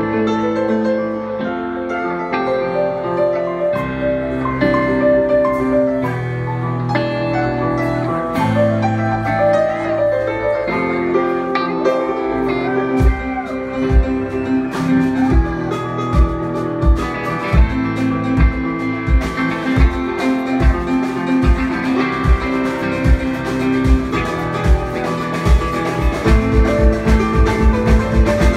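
Live jam-band instrumental with keyboard chords and bass held over each other. About halfway through a kick drum comes in with sparse beats, then settles into a faster steady beat near the end.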